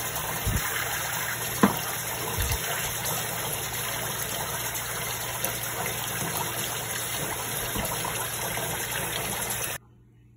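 Hot water running from a kitchen faucet into a stainless steel sink, filling it around a lidded stock pot. A few light knocks come in the first few seconds. The running water stops abruptly near the end.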